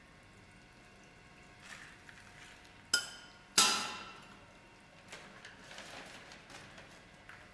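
Two sharp metallic knocks about half a second apart, each with a short ring, the second the louder, followed by a few light clicks and taps.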